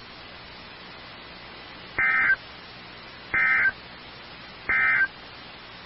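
Three short bursts of Emergency Alert System end-of-message data tones (the SAME digital code that closes a weather-radio warning), each about a third of a second long and about 1.3 seconds apart, over a steady low hiss.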